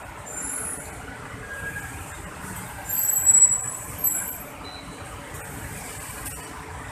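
Steady road traffic, with high-pitched squeals of cars' brakes being applied. The loudest squeal comes about three seconds in and lasts about a second, followed by a short sharp one just after.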